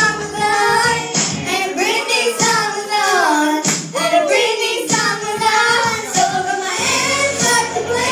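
Two young girls singing a pop song into microphones over a karaoke backing track, heard through the PA.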